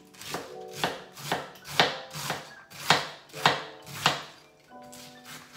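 Kitchen knife chopping cabbage: about eight chops, roughly two a second, stopping about four seconds in.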